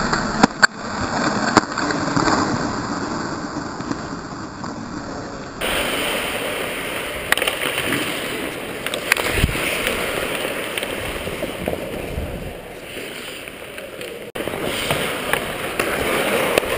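Ice hockey skate blades scraping and carving across the ice, a rushing hiss that swells and fades with each stride and turn, heard from a helmet-mounted camera. A few sharp clacks of stick on puck come in the first two seconds.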